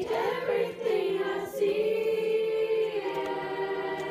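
Choir singing a cappella in harmony, holding long chords, with the chord changing about three seconds in.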